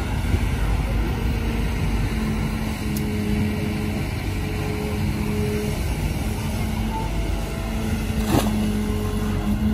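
Kobelco SK200 hydraulic excavator working, its diesel engine running under load with a steady hum as the bucket digs wet mud from a ditch. A single sharp knock about eight seconds in.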